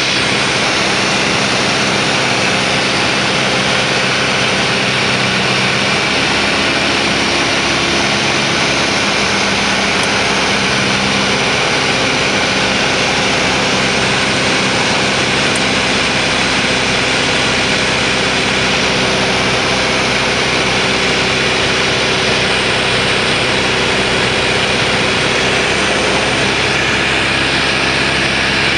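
Light propeller aircraft's piston engine and propeller droning steadily, heard inside the cabin together with the rush of airflow, on the descent to land. The engine note shifts slightly about a third of the way in and again near the end.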